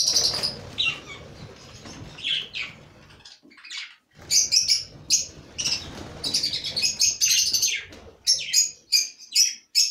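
A flock of budgerigars chirping, with many short, high chirps in clusters, a brief lull about three to four seconds in, and denser chirping in the second half.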